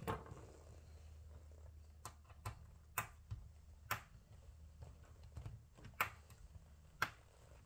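Scattered sharp clicks and taps, about seven spaced unevenly, of a small hand tool working at a stripped screw in a laptop's case.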